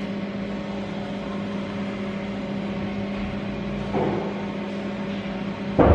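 Steady electrical hum from a running motor or appliance, with two short knocks: one about four seconds in and a louder one near the end.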